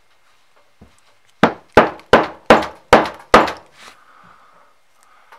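Six loud, sharp knocks about three a second, each dying away quickly, as something hard is struck during work on a fog machine pump.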